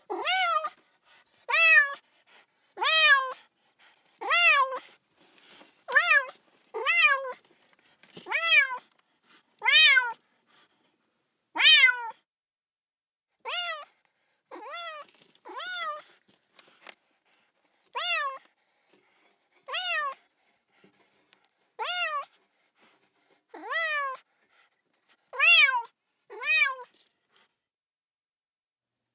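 A kitten meowing over and over: short high-pitched meows about every second and a half, each rising and then falling in pitch, with a few quieter ones midway.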